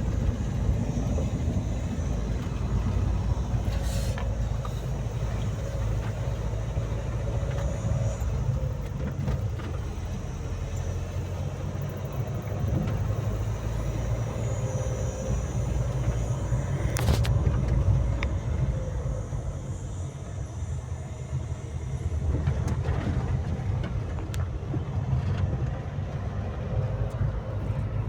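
A car on the move: steady low engine and road rumble, with a few brief sharp knocks, the clearest about 17 seconds in.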